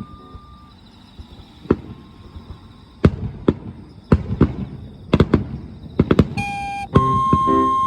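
Fireworks going off: a series of sharp cracks and pops at uneven intervals over a low rumble, coming thicker after about three seconds. Music comes back in near the end.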